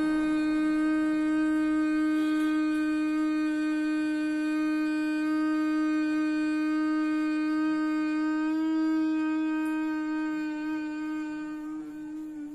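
A woman humming one long, steady note with her mouth closed: the humming-bee exhale of bhramari pranayama, breathed out slowly. The hum grows quieter near the end.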